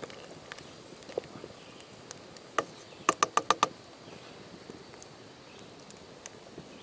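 A single sharp click, then about half a second later a quick run of about six sharp clicks, over a faint steady background.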